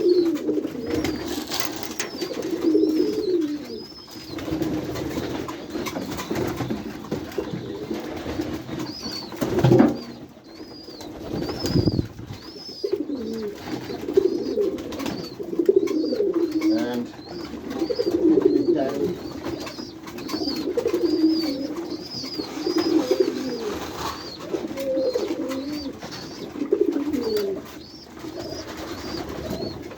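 Domestic white Kaguji high-flyer pigeons cooing over and over in a small room, with faint high chirps throughout. A sharp knock comes about ten seconds in, and a duller thud follows a couple of seconds later.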